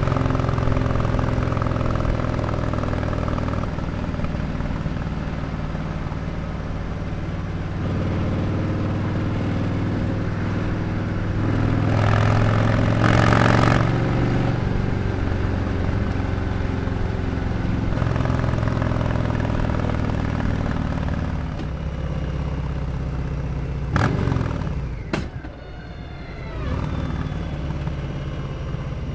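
2020 Harley-Davidson Sport Glide's Milwaukee-Eight V-twin running steadily through a Jekill & Hyde exhaust while under way, with a louder rushing swell for a couple of seconds about halfway. Near the end there is a sharp crack, then the engine note drops lower and quieter as the bike slows.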